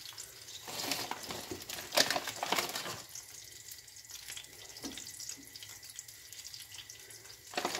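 Breaded nuggets deep-frying in a pot of hot oil: a steady sizzle with scattered crackles, busiest in the first three seconds, and one sharp crack about two seconds in.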